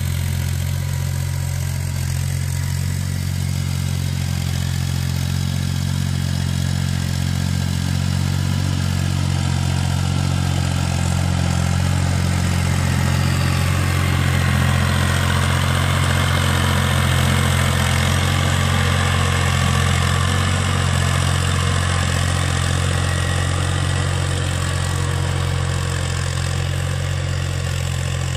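Fiat 480 tractor's three-cylinder diesel engine running steadily under load while pulling a plough through the soil. It grows louder and brighter about halfway through as the tractor passes close by.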